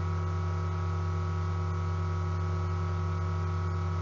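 Steady electrical hum in the recording: a low drone with fainter steady high-pitched tones above it, and no other sound.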